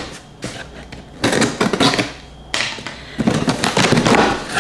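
Cardboard shipping box being opened and handled: scraping and rustling of cardboard and packaging in a few irregular noisy stretches, loudest in the second half.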